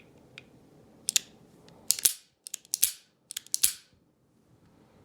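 Antique MAS 1874-pattern revolver's action working: four quick clusters of sharp metallic clicks and snaps, as of the hammer being cocked and let fall and the cylinder turning.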